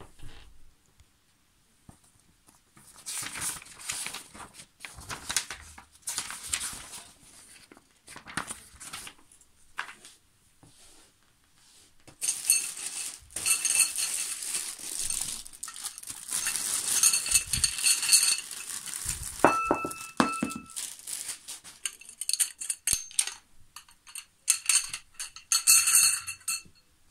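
Plastic packaging crinkling and tearing as trolley parts are unwrapped, with thin metal tubes clinking and ringing against each other, most of all in the second half.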